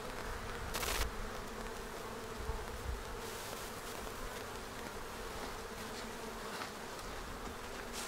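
Swarm of honey bees buzzing steadily around an open hive as a frame covered in bees is lifted out, with a brief rasping noise about a second in.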